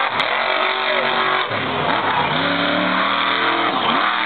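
Grave Digger monster truck's supercharged V8 revving hard, its pitch climbing, dropping briefly about a second and a half in, then climbing again before falling off near the end.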